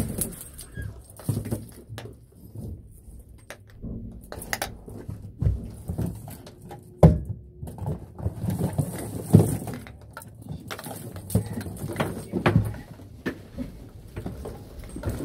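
Bundles of flexible metal shower hoses and chrome shower heads clinking and rattling as they are lifted and handled, with irregular knocks and rustling; the sharpest knocks come about seven and nine and a half seconds in.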